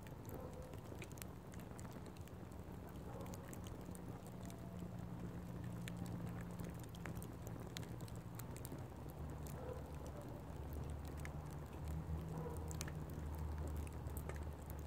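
Fire crackling, with scattered sharp pops over a low, steady rumble.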